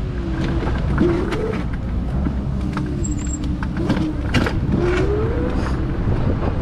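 Mercane MX60 electric scooter's motors whining, the pitch wandering and rising as it speeds up about five seconds in. Underneath are a steady low rumble and frequent small rattles and clicks as it rolls over a rough path.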